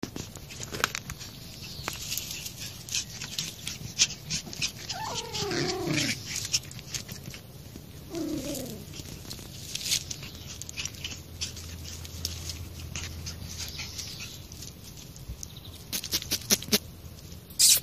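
Toy Pomeranian puppies scampering and scuffling in dry leaves and grass, with constant rustling and scratching, and two short whimpers that fall in pitch, about five and eight seconds in.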